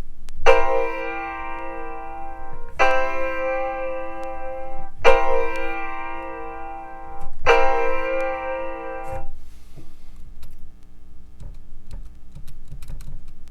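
Soundtrap's lo-fi upright piano software instrument, played from a USB MIDI keyboard: four held chords, each ringing about two seconds, one after another. After them come faint clicks.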